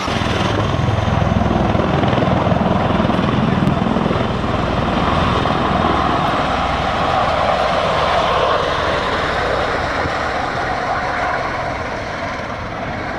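Osprey tiltrotor aircraft flying by, a loud rotor and engine roar with a low beating pulse. It swells just after the start and slowly fades toward the end.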